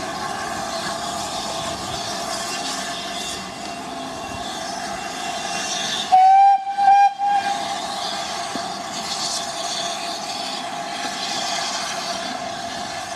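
GWR steam locomotive whistle sounding two short blasts about six seconds in, over a steady hiss of steam.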